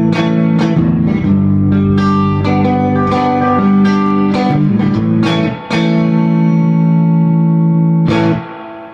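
Electric guitar played loud through a clone of a 1964 Fender Vibroverb tube amp: picked notes and chords with heavy bass, ending in a chord held for a couple of seconds that is cut off near the end. The recording is overloaded by the amp's volume, which the player calls microphone saturation.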